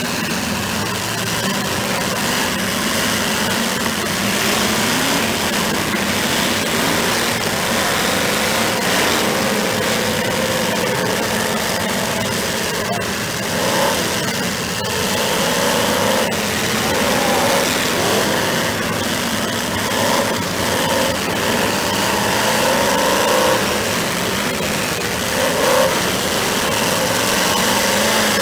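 Several demolition-derby car engines running together, with revs rising and falling now and then.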